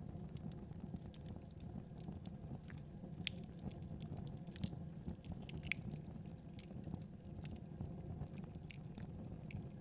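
Wood fire burning with a steady low rumble and frequent irregular crackles and pops, a few louder snaps among them.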